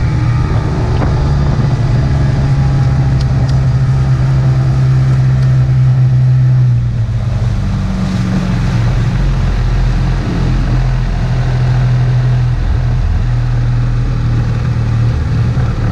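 Outboard motor running steadily at speed, pushing a skiff, with water rushing past the hull. Its note drops slightly and the sound eases a little about seven seconds in.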